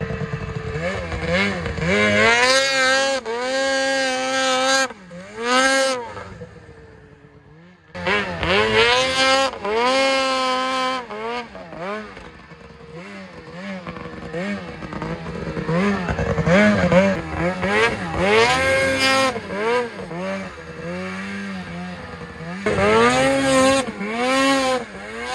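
A 600RS snowmobile's two-stroke engine revved hard in repeated bursts, its pitch climbing and dropping with each stab of the throttle as the sled is hoisted into wheelies. There is a quieter lull about a quarter of the way in.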